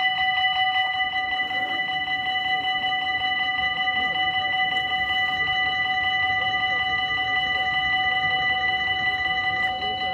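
Dutch railway level-crossing warning bell ringing in rapid, even strokes on a steady ringing tone, warning of an approaching train while the barriers lower.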